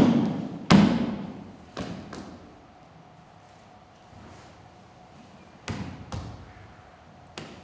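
A series of heavy thuds, each dying away in a long echoing tail: one just before the start and another just under a second in, two more around two seconds in, then after a pause a pair near six seconds and a lighter one near the end. A faint steady hum lies underneath.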